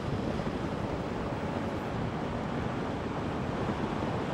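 Steady rush of wind on the microphone and tyre noise from a Zero DSR electric motorcycle riding along at road speed: an even hiss with no engine note.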